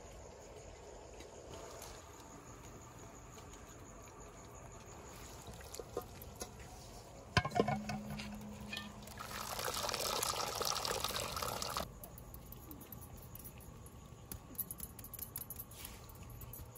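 Liquid being poured in a steady stream for about two and a half seconds, after a sharp knock and a few light clatters.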